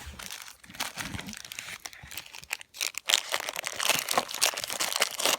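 Crinkly packaging being handled and crumpled in two stretches, with a short break near the middle.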